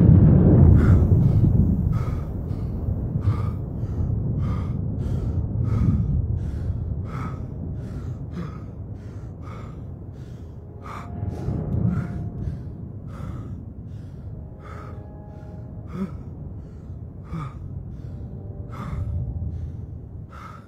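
A young man panting hard in short, even breaths, about one and a half a second, over a low rumble of thunder that dies away over the first few seconds.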